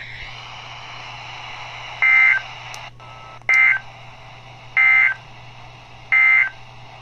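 Electronic alert beeper of a Sage EAS ENDEC sounding four short, high beeps about 1.3 seconds apart, over a steady hiss and low hum, with a couple of faint clicks between the first and second beeps.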